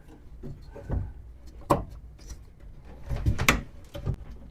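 Small wooden patch being test-fitted onto an antique pine secretary: a few sharp knocks and some rubbing of wood on wood, the loudest knock about three and a half seconds in, as the piece goes in tight.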